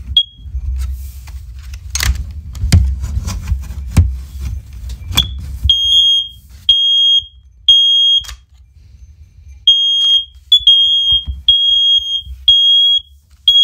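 First Alert OneLink interconnected hardwired smoke alarms going off in a test. A few sharp knocks come first, then about six seconds in loud high beeps start: three in a row, a short pause, then a run of beeps from more than one unit sounding slightly out of step.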